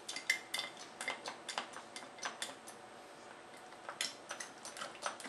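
Plastic pump dispenser on a small oil bottle pressed over and over, clicking about four times a second, with a pause about halfway through before the clicking starts again. The pump is giving little oil.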